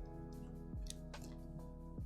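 Background music at low level: sustained synth tones over a low kick drum that falls in pitch, hitting about once a second, with a few faint clicks.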